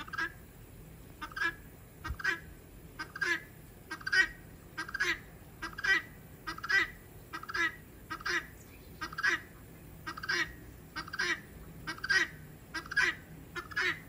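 Guineafowl calling its two-note 'buck-wheat' call over and over, about one pair of raspy notes a second. This two-syllable call is the one given by a hen guineafowl.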